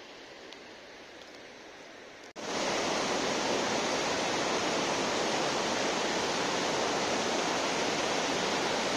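Faint steady outdoor hiss, then, after a cut about two and a half seconds in, the loud, steady rush of a fast stream of white water pouring through a cave mouth.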